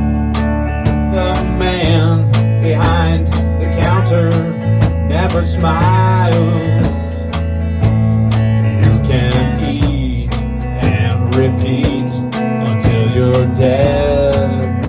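Band playing the instrumental close of a rock song: a steady drum beat, a bass line moving from note to note, and a lead melody with bending notes over it.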